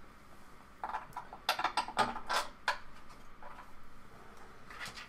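Hands handling 3D-printer parts and tools during assembly: an irregular string of light knocks and clicks, most of them between one and three seconds in, with a couple more later.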